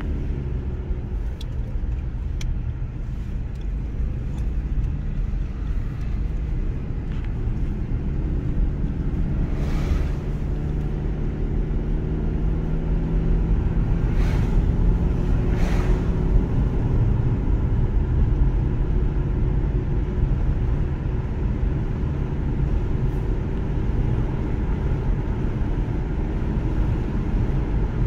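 Steady road and engine noise heard from inside a moving car's cabin, with brief whooshes of oncoming cars passing about ten and fifteen seconds in.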